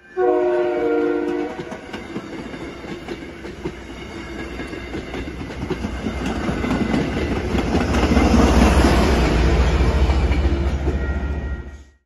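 Commuter train's chord horn sounds one short blast of several notes, then the train passes close by with a rising rumble and wheel noise on the rails, loudest from about eight seconds in, stopping abruptly near the end.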